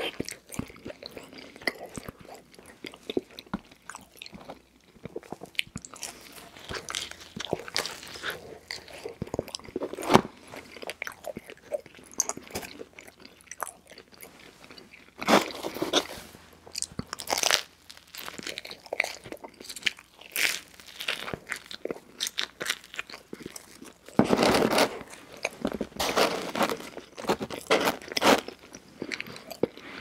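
Close-miked mouth sounds of a person biting and chewing cheese pizza: irregular bites and chewing, louder for a few seconds about halfway through and again for several seconds near the end.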